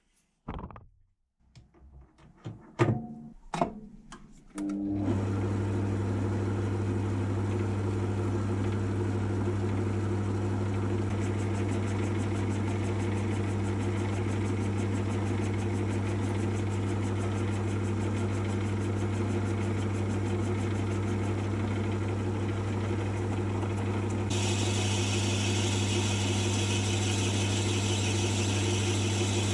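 A few short handling knocks, then a small metal lathe's motor starts about five seconds in and runs steadily with a low hum, spinning stock held on a home-made live centre with new bearings. A bright hiss joins near the end.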